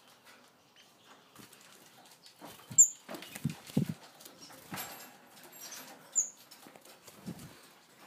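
Two short, sharp, high chirps from a small cage finch, about three seconds apart, among dull knocks and rustling.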